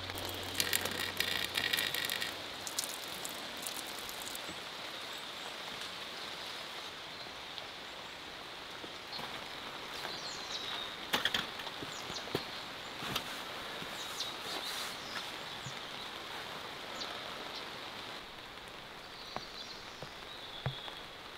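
Steady rain falling, with scattered sharp drips and light knocks now and then.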